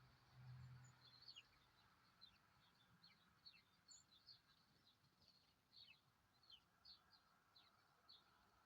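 Small birds chirping at a winter feeder: many short, high, falling chirps scattered irregularly, faint. A brief low hum sounds about half a second in.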